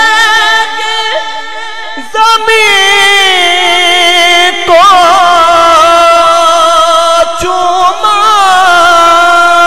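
A man singing an Urdu naat, drawing out long, ornamented held notes with wavering pitch and no clear words.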